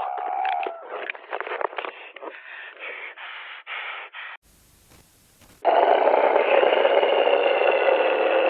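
Distorted radio transmission: a choppy, breaking-up signal for about four seconds, then a second of faint hiss as it cuts out, then a loud, dense crackle of static that carries on.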